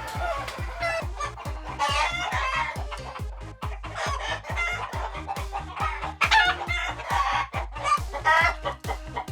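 Roosters crowing and hens clucking, call after call, over background music with a steady beat.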